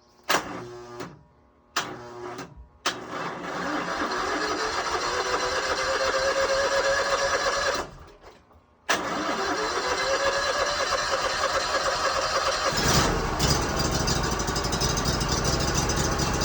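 Homemade sawmill's engine being cranked with its electric starter on a doubtful battery: a few short bursts, then two long cranks whose whine rises in pitch, with a pause between them. The engine catches about 13 seconds in and runs steadily.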